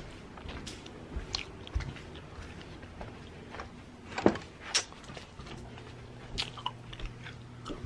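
Handling noise from a phone held close to the body: scattered light clicks and taps with soft rustling, the loudest a pair of sharp taps about four seconds in.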